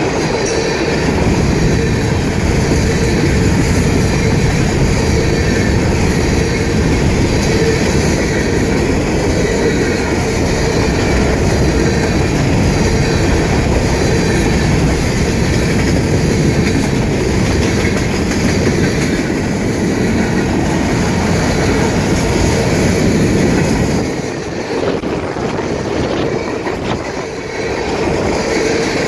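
Freight cars of a long CSX train rolling past at speed: a loud, steady rumble of steel wheels on the rails. The noise dips briefly twice near the end.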